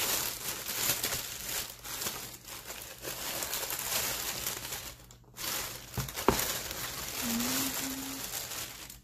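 Plastic poly-mailer and padded packaging crinkling and rustling as it is pulled open and handled, with a brief lull about five seconds in and a single knock just after six seconds.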